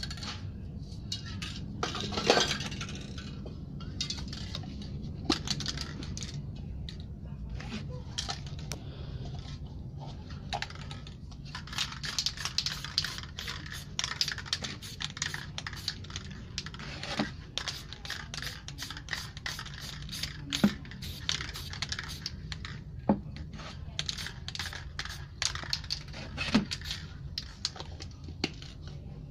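Aerosol spray paint can hissing in short bursts, with many sharp metallic clicks and clinks as the spray cans are handled.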